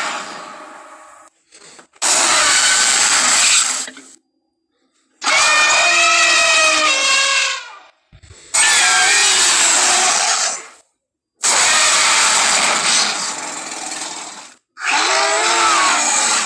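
About five monster roar sound effects in a row, each two to three seconds long with brief silences between, some with a wavering, gliding pitch. They are made by mixing Godzilla (1998) and Jurassic Park T. rex roars with elephant, lion and bigfoot sounds.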